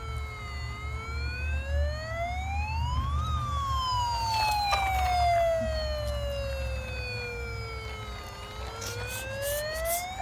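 Toy bubble fire truck's electronic siren wailing: the pitch climbs for about three seconds, then slides slowly down for about five, and starts climbing again near the end. A steady low hum runs underneath, with a few light clicks.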